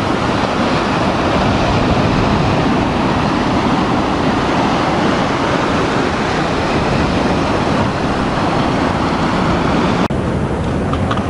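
Surf breaking and washing up a sandy beach: a loud, steady rushing, with heavy low rumble. About ten seconds in, the sound changes abruptly.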